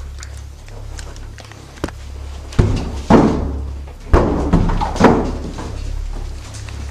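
A series of sudden knocks and thumps, four loud ones about a second apart after a faint first one, over a low steady rumble.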